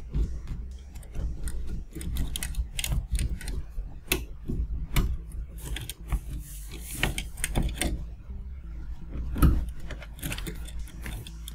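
Plastic wire-harness plugs being unplugged inside a Mitsubishi DLP TV: irregular clicks and rattles of connectors, wires and the metal chassis being handled, with a louder knock near the end.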